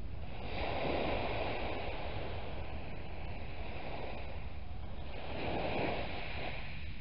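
Small waves breaking and washing over a shingle beach, the surf swelling twice, about a second in and again near the end, over a steady low rumble of wind on the microphone.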